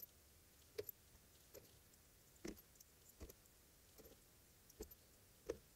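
Faint, irregular clicks and taps, about one a second, of spark plugs and a metal feeler gauge being handled on cardboard as the plug gaps are checked.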